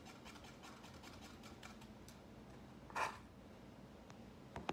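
Faint taps of a paint marker's tip dabbing on a mask, then a brief rustle about three seconds in and a sharp click at the very end.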